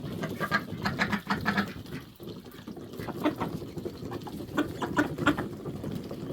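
Flock of domestic ducks and geese, with quick runs of short sounds in two clusters: one in the first couple of seconds and another from about three to five seconds in.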